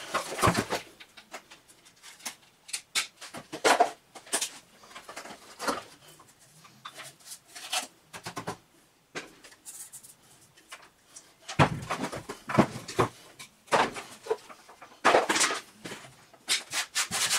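Clicks, knocks and rattles of plastic vacuum-cleaner parts, the motor, its housing and a round seal, being handled and set down on a wooden table, with clusters of louder knocks about twelve seconds in and again near the end.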